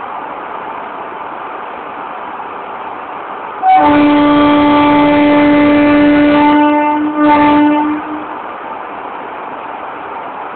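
Locomotive air horn: one long steady blast of about three seconds, a brief break, then a shorter second blast, over a steady background hum.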